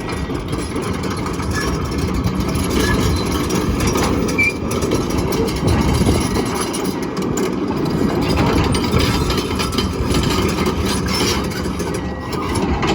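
Komatsu PC240LC-10 hydraulic excavator's diesel engine running steadily.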